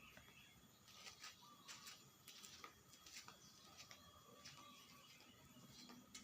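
Near silence: faint background with a few brief, faint clicks between about one and three seconds in.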